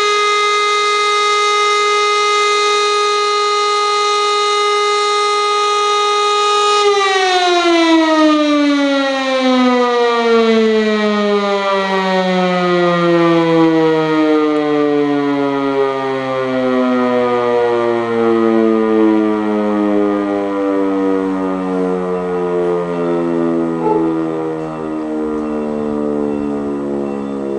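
Electro-mechanical E57 siren, driven by a three-phase electric motor, holding its steady full-speed tone. It is switched off about seven seconds in, and as the rotor coasts down the tone falls slowly and smoothly in pitch, still sounding near the end. This is the close of one long tone of a fire-brigade alarm.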